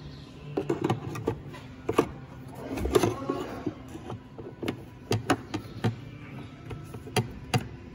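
New internal oil filter of a Mercedes dual-clutch automatic transmission being handled and pushed into place on the valve body: irregular sharp clicks and knocks of plastic and metal parts.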